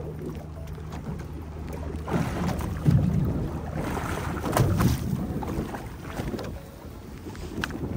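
Fishing boat at sea: a steady low engine hum fades out about two seconds in, then gusts of wind buffet the microphone, with a few sharp clicks.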